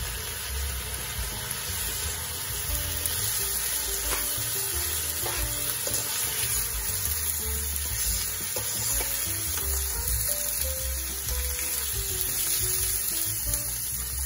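Soaked basmati rice frying in hot oil in a wok, a steady sizzle as it is stirred with a slotted spoon, with a couple of brief scrapes of the spoon about four and five seconds in. Background music with a simple melody plays throughout.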